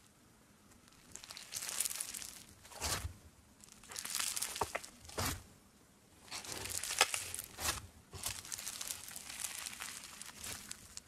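Fluffy slime made with body wash being squeezed, pressed and stretched by hand. It gives about six separate bursts of crinkly, tearing noise, each lasting up to a second or so, with short quiet gaps between.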